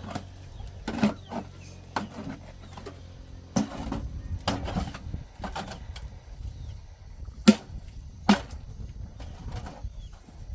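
A series of sharp, irregularly spaced knocks and thuds over a low background rumble, the two loudest coming a little less than a second apart about three-quarters of the way through.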